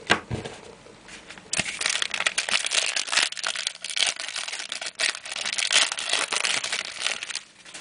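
Clear plastic wrapper of a trading-card pack crinkling as it is handled and torn open: dense crackling for about six seconds that stops suddenly near the end. A short knock comes just at the start.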